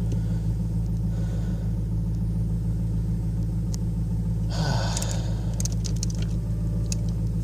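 1994 Ford Thunderbird's 4.6-litre V8 idling steadily through a glass-pack exhaust, the engine still cold and warming up.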